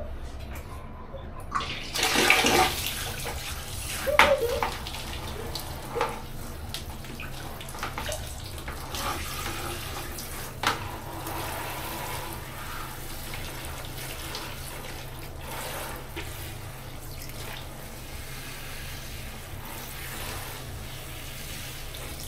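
Running water pouring and splashing steadily during a hair wash, with a louder burst of splashing about two seconds in and a few short sharp splashes after.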